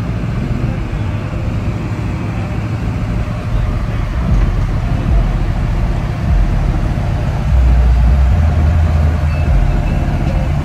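Box Chevy Caprice's engine and exhaust running with a steady low rumble as the car rolls slowly on its oversized wheels, rising somewhat louder about eight seconds in.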